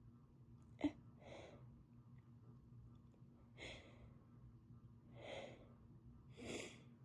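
A woman with a head cold breathing, with a short sharp catch of breath about a second in and then four slow, soft breaths spaced a second or two apart. These are typical of a sneeze building and not yet coming.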